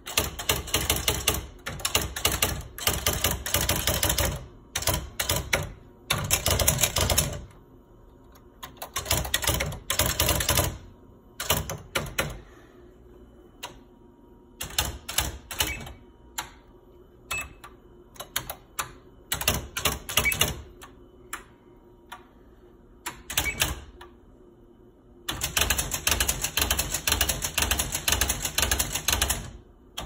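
Smith Corona SL 575 electronic typewriter being typed on: rapid runs of sharp mechanical key and print strikes in bursts of a few seconds, with short pauses and scattered single strokes between them. A faint steady hum carries through the pauses.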